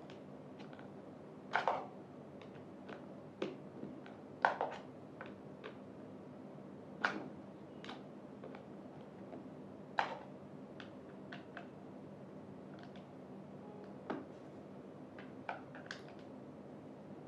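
Irregular clicks and light knocks of screws and parts being handled while a chair's armrests are screwed onto the seat, about a dozen over the stretch, over a faint steady hum.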